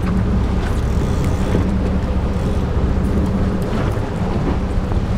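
A boat's engine running steadily at low revs, a constant low hum.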